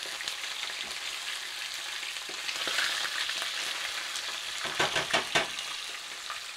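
Chicken breasts sizzling skin side down in hot oil, a steady frying hiss as they sear. About five seconds in comes a quick run of louder snaps.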